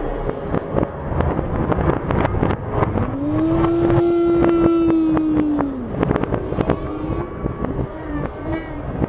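Fireworks slowed down and played backwards: a dense run of drawn-out crackles and bangs. About three seconds in, a long howling tone rises, holds for about two and a half seconds, and falls away.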